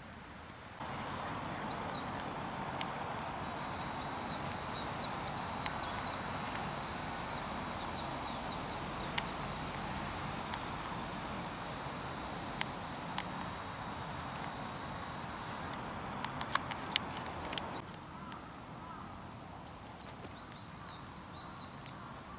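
Outdoor garden ambience: a high call repeats about once a second over a steady high drone. Beneath them is a broad hiss that begins abruptly just after the start and stops abruptly about three-quarters of the way through. A few light clicks fall in the second half.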